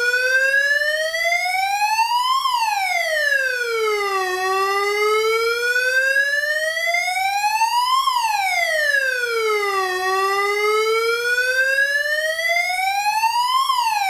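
UM3561 siren-generator IC set to its fire-engine siren, sounding through a small oval loudspeaker: a buzzy electronic wail that climbs slowly for about three and a half seconds and drops back in about two, over and over.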